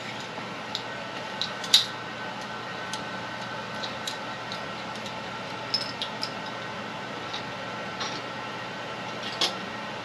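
Scattered light metallic clicks and taps as a slide hammer bearing puller is handled and its jaws are set into a finish mower spindle housing held in a vise, with no hammer blows yet. A steady shop hum runs underneath.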